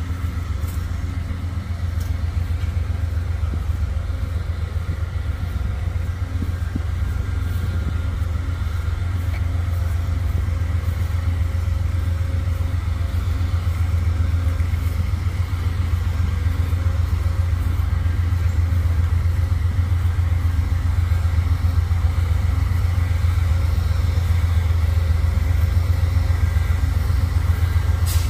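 Diesel freight locomotive engine running: a steady, deep, rapidly pulsing rumble that grows slowly louder.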